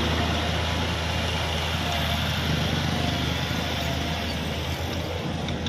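Kubota L5018 tractor's diesel engine running steadily under load as it drives a rear-mounted rotary tiller through the soil.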